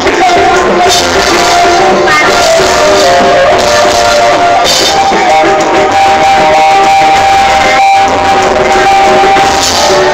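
A busker's song: singing over guitar accompaniment, with one long held note in the second half.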